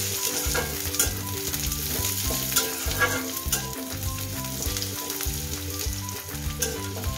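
Sliced onions and green chilies sizzling in hot oil in a metal kadai while being stirred, with the metal spatula scraping and clicking against the pan every second or so.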